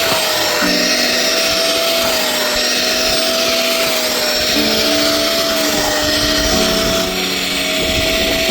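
Ramicom RWC3000 washing vacuum cleaner running steadily: a motor whine that wavers slightly in pitch over a loud rush of air.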